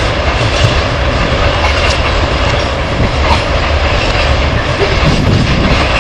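Freight train of tank wagons rolling past close by: a steady, loud noise of wheels running on the rails.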